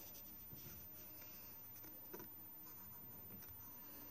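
Faint scratching of a graphite pencil drawing lines on paper.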